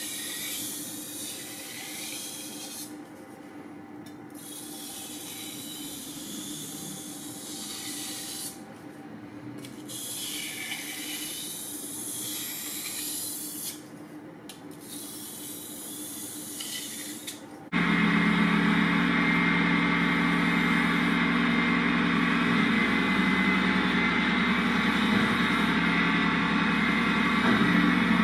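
A motor-driven wet sharpening machine runs steadily, a low hum with a hiss of water over it, cutting in suddenly about two-thirds of the way through. Before it, softer hissing comes in long stretches broken by short pauses.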